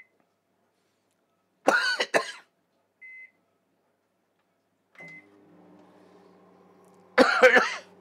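Microwave oven keypad beeping as it is set, then the microwave starting with a steady hum about five seconds in. A man clears his throat twice, roughly, and these are the loudest sounds.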